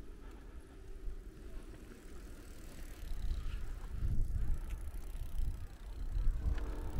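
Wind buffeting the microphone: an uneven, gusty low rumble that grows stronger about three seconds in.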